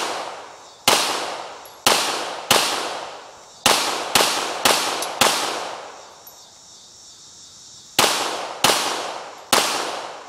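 Beretta M92FS 9mm pistol firing ten shots at an uneven pace, about half a second to a second apart, with a pause of nearly three seconds after the seventh. Each shot has a sharp crack followed by a long echo that fades out.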